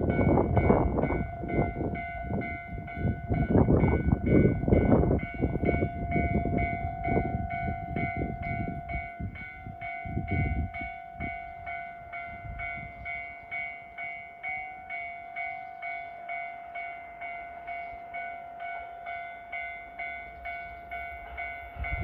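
Japanese level-crossing warning bell ringing steadily, a repeated electronic ding about twice a second, warning of an approaching train. Heavy low rumbling fills roughly the first ten seconds, then dies away.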